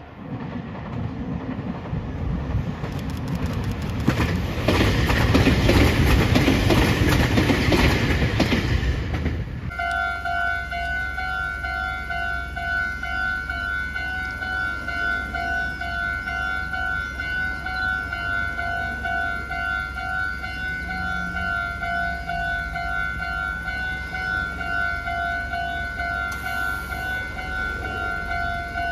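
A Meitetsu electric train passes close by, its wheels clacking over the rail joints, getting louder until the sound cuts off about ten seconds in. Then a Japanese level-crossing warning bell rings steadily, an electronic chime pulsing at two fixed pitches.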